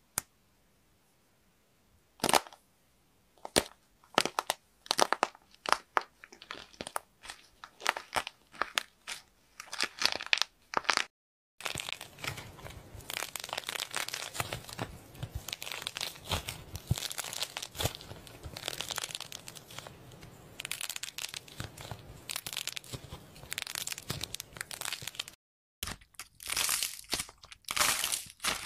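Slime being squeezed and worked by hand, making sharp crackling and popping clicks: scattered single pops for the first ten seconds or so, then dense continuous crackling.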